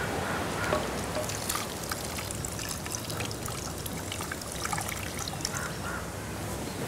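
Ground masala paste and liquid trickling from a clay bowl into an earthen pot of curry, with small scrapes and ticks as fingers scrape the bowl out.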